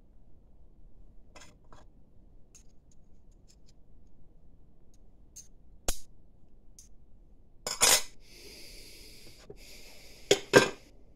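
Metal parts of a disassembled e-bike hub motor clutch clicking and clinking as they are handled and turned by hand, with a brief rasping scrape about eight seconds in and two sharp clinks, the loudest sounds, near the end.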